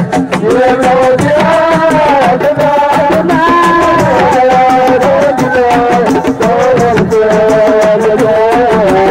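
Live Senegalese assiko band music: dense, fast drumming and percussion under a sustained, gliding melody line.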